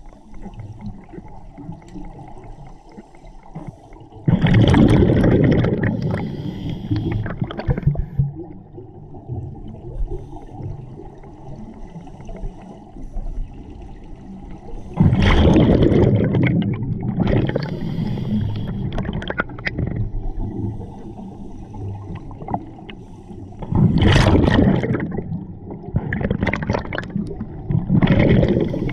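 Scuba diver's exhaled bubbles rushing out of the regulator underwater, in four gurgling bursts about a breath apart, with a quieter water rumble between.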